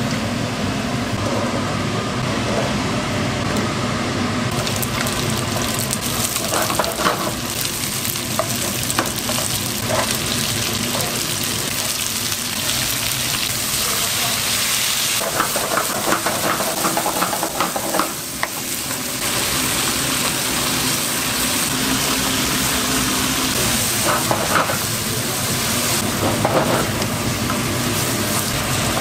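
Sundae and perilla leaves sizzling as they are stir-fried in a hot pan, with a utensil clacking and scraping against the pan now and then.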